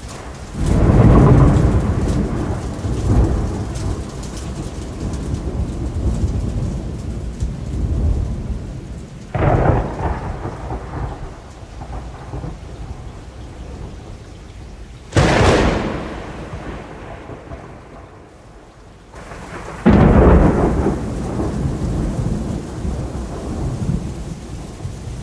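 Thunderstorm: four thunderclaps over steady rain, each breaking suddenly and rolling off into a long low rumble. They come about a second in, about a third of the way through, just past halfway and about four-fifths through; the one past halfway is the sharpest crack.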